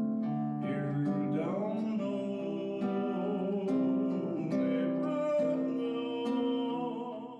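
A man singing while strumming an acoustic guitar, with held sung notes over regular strums; the sound fades out right at the end.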